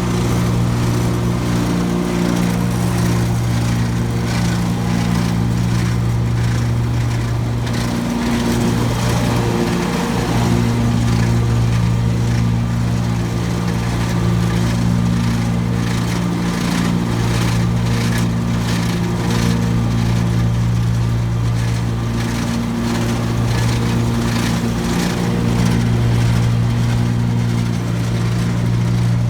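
Gravely ZT HD 52 zero-turn mower running steadily with the PTO engaged, with a rattling noise from the 52-inch deck over the engine. The owner says it seems to come from the left-side deck belt and gets much quieter when that belt is given more tension.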